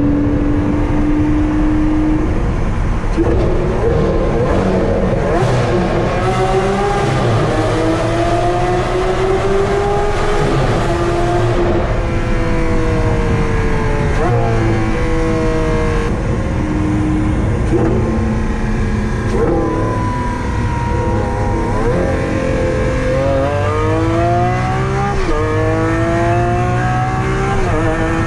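Lamborghini Aventador SV's naturally aspirated V12 breathing through a catless Fi Exhaust system, heard from inside the cabin on the move. The engine note rises and falls through several pulls, with the pitch jumping at gear changes a few times and a steep climb near the end.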